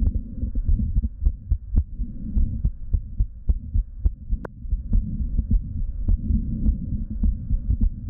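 A woman's heartbeat at rest heard through a Littmann stethoscope on the chest: repeated low, muffled beats with a diastolic heart murmur, which the doctor puts down to diastolic dysfunction. A single sharp click sounds about halfway through.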